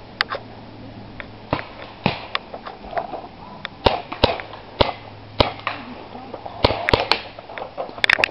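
Paintball marker shots: a dozen or so sharp pops at irregular intervals, some in quick pairs, with a cluster near the end.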